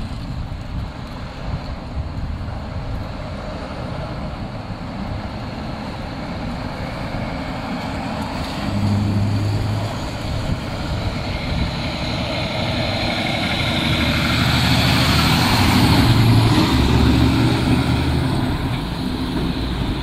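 Heavy tri-axle dump truck's diesel engine approaching and passing in traffic with cars, growing louder to a peak about three quarters of the way through, then easing off as it pulls away.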